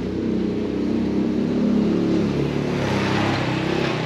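A motor vehicle's engine hum, with a hiss that builds toward the end.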